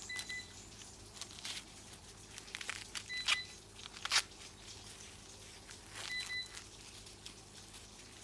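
Corn leaves and husks rustling and crackling, with sharp snaps as ears of maize are broken off the stalks by hand. A short high beep repeats about every three seconds.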